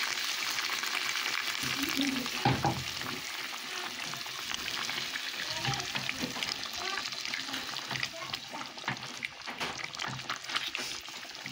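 Chicken curry sizzling and bubbling in a pot after hot water has been added, with a silicone spatula stirring and scraping against the pot. The sizzle is strongest at first and dies down toward the end.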